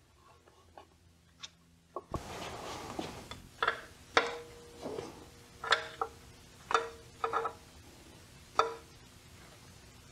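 A steel wrench clinking against the nuts of a diesel engine's high-pressure injector fuel lines as they are fitted and tightened: a few faint ticks at first, then about six sharp metallic clinks, several leaving a brief ring.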